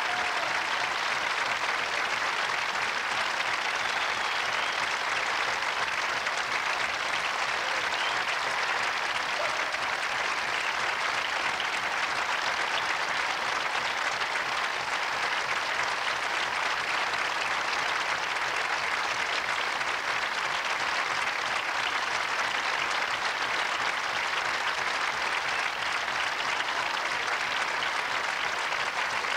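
Concert-hall audience applauding, a dense, even clapping that holds steady throughout.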